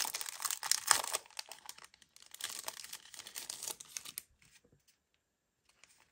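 Crinkling of packaging as a pack of craft papers is picked up and handled, in two spells over the first four seconds, then near silence.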